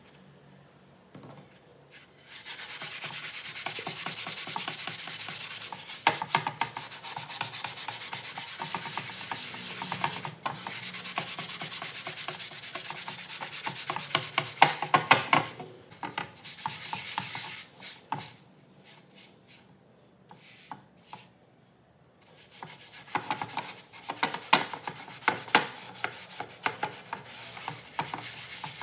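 Scouring sponge scrubbing a dark metal pan strewn with gritty white powder: a steady scratchy scrub that starts about two seconds in, breaks into a few short strokes and a brief pause past the middle, then picks up again near the end.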